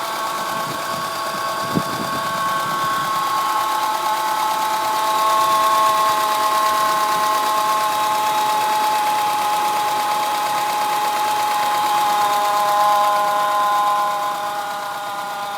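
Acura RSX 2.0-litre four-cylinder running with a steady high whine from the engine bay, its pitch drifting slightly, and a brief click about two seconds in. The owner's first guess for the whine is the power steering pump, though he is unsure.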